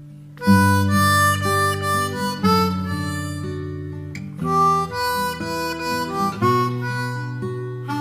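Background instrumental music; a new phrase comes in sharply about half a second in.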